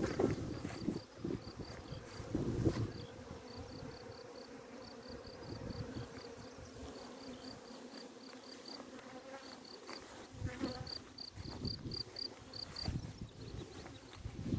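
Honeybees buzzing in a steady hum, with a high chirping in quick, even pulses that stops and starts through it, and a few low bumps near the start and again toward the end.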